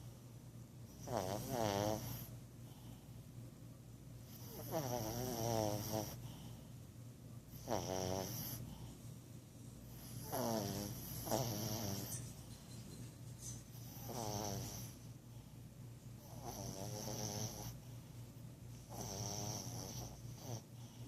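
Small dog snoring loudly: about seven snores in a steady run, one every two to three seconds.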